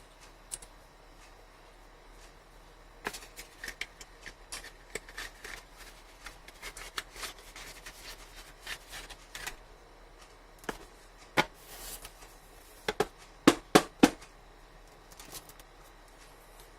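Hands handling a smartphone's box and packaging: scattered light rustles and taps, then a few sharp clicks, several in quick succession near the end.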